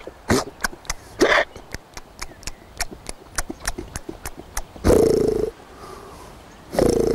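A man imitating a wild boar with his voice: a run of short, quick grunts, about four a second, then two longer, louder drawn-out grunts, one past the middle and one at the end.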